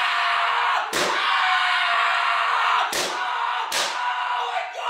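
Three sharp bangs, like slams, over a loud, dense noisy din: the first about a second in, then two close together at about three and three-and-three-quarter seconds.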